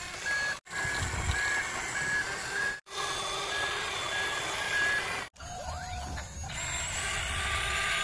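Electronic reversing-alarm beeps, a short high tone pulsing evenly at nearly two a second, that stop about five seconds in. A rougher, steady noise follows.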